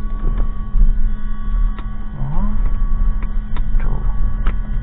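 Steady electrical hum in a light aircraft's cockpit with the battery master switched on and the engine not yet started, over a low rumble, with a few sharp clicks.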